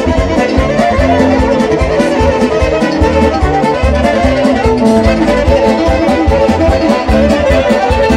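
Romanian lăutari taraf playing a fast instrumental piece, a violin leading the tune over a steady beat.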